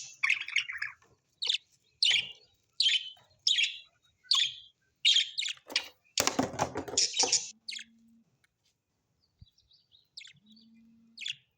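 Small birds chirping: a run of short, high calls about one every two-thirds of a second, with a louder, fuller burst of calling about six seconds in, then only a few scattered chirps.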